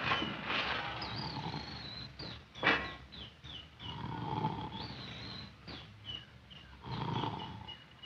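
Loud, exaggerated snoring from a man asleep on a bench, a rasping snore about every three seconds, with short high chirping whistles repeating throughout and two sharp crashes near the start.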